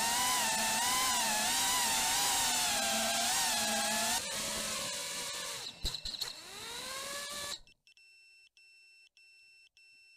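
Eachine Wizard X220S quadcopter's brushless motors whining, the pitch wavering up and down with the throttle, with a knock about four seconds in and a jolt shortly after, then the motors spooling up again. The sound cuts off about three quarters of the way through, leaving faint, evenly repeating electronic beeps.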